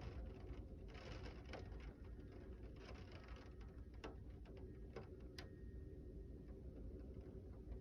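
Rain starting to fall with scattered sharp ticks of hail striking, over a steady low rumble. There are two short gusts of hiss, about one and three seconds in.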